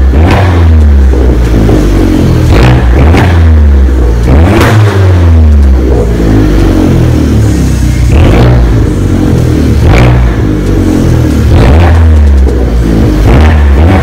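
2012 Fiat 500 Abarth's turbocharged 1.4-litre four-cylinder, warmed up, revved over and over through its stock exhaust, each rev falling back toward idle.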